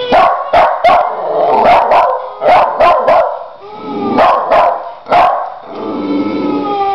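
West Highland white terrier puppy barking sharply and repeatedly, about a dozen quick barks in the first five seconds, then a dog's long, slowly falling whine near the end.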